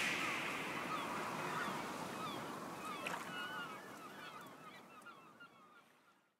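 Background music fading out to silence, with short chirping pitch glides in it.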